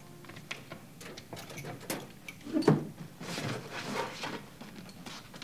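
Scattered light clicks, knocks and rustling as sports bags and gear are handled in a tiled locker room, with a louder knock about two and a half seconds in.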